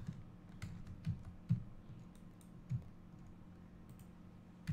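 Computer keyboard keys and mouse buttons clicking a few times at irregular moments, with a soft thud in some of the presses.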